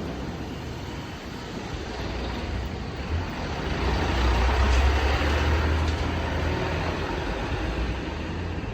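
A vehicle passes close by on the street. Its deep rumble and road noise build to a peak about halfway through and then fade.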